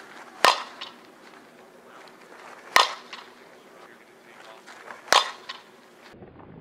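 Fastpitch softball bat striking pitched softballs: three sharp cracks, evenly spaced about two and a half seconds apart.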